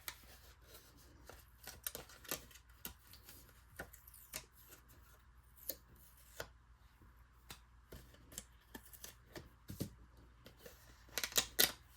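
Cardstock and a metal cutting die being handled: soft paper rustles and scattered small clicks and taps, with a brief flurry of clicks near the end.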